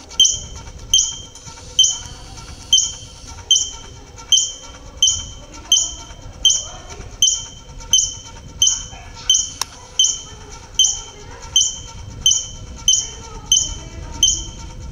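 Rock squirrel (ardilla lobo) calling a short, sharp, high-pitched chirp over and over at a very even pace, a little more than once a second. This steady repeated chirp is the species' alarm call.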